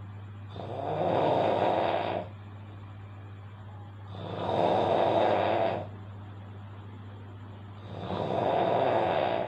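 A person snoring loudly: three long snores, about one every three and a half to four seconds, each swelling up and then cutting off, over a steady low hum.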